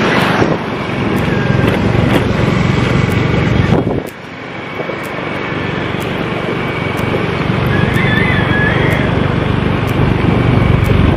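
Steady noise of riding on a motor scooter: the engine running, with wind rushing over the microphone. It dips briefly about four seconds in, then builds back.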